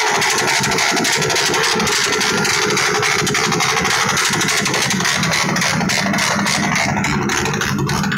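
Small motorcycle engine held at high revs, a loud, steady, raspy buzz; it is being deliberately over-revved, with its exhaust pipe glowing red-hot.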